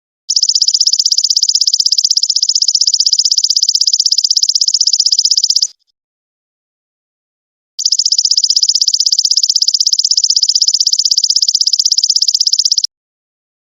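Golden locust (belalang emas) stridulating: two long, rapidly pulsing high buzzing trills of about five seconds each, separated by a couple of seconds of silence.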